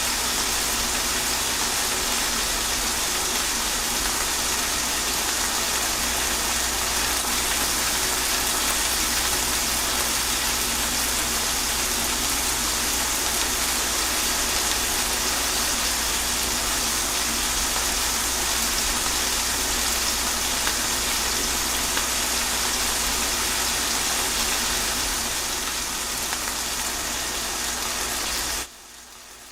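Steady rain, a dense even hiss; shortly before the end it drops abruptly to a much quieter level.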